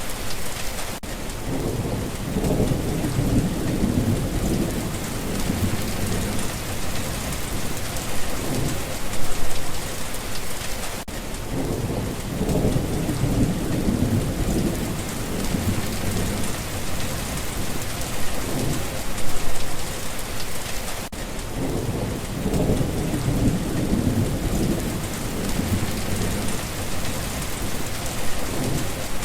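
Steady rain with low rumbles of thunder that swell three times, about ten seconds apart.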